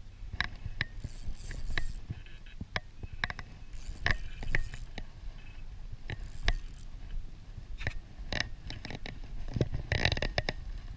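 Irregular clicks, knocks and short scraping rustles from fishing gear being handled on a kayak, over a steady low rumble.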